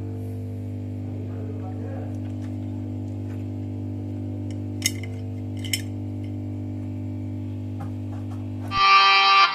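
Quiet background music of steady held tones, with two brief clicks about five and six seconds in. Near the end, louder, brighter music cuts in abruptly.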